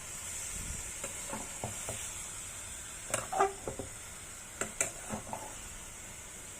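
Bean sprouts and tofu frying in a pan with a steady sizzle while a utensil stirs them, giving scattered light clacks and scrapes against the pan in small clusters.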